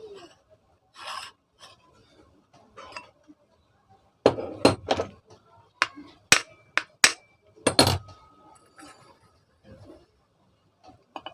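Sharp knocks and metallic clinks of tools and ceiling-fan parts being worked by hand, in an irregular series with a couple of them ringing briefly, and softer rubbing between.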